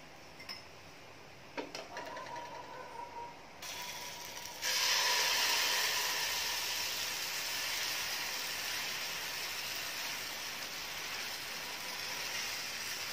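Batter sizzling as it is ladled onto a hot ghee-greased nonstick pan. The sizzle starts suddenly about four and a half seconds in and goes on steadily, slowly easing. Before it come a few light scrapes and taps of a spatula on the pan.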